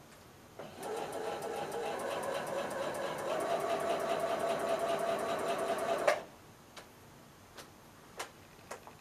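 Singer electric sewing machine stitching through layers of denim: a rapid, even run of needle strokes that starts just under a second in, rises slightly in pitch as it speeds up about halfway, and stops abruptly with a click about six seconds in. A few light clicks follow.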